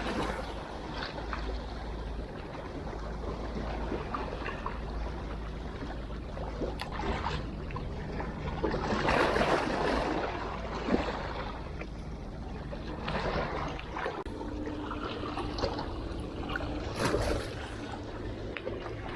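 Seawater splashing and trickling in small irregular surges, the loudest about nine seconds in.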